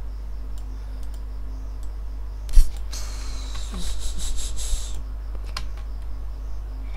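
Computer keyboard typing: one sharp, loud click about two and a half seconds in, then a quick run of keystrokes lasting about two seconds. A steady low electrical hum runs underneath.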